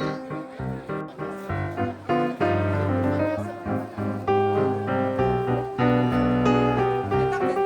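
Background music: piano playing a melody over sustained low notes.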